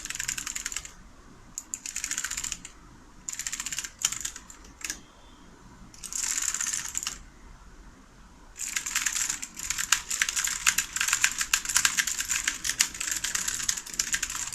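Mechanical keyboard with clicky blue switches being typed on in several short bursts of rapid key clicks, then a long stretch of fast continuous typing from about nine seconds in.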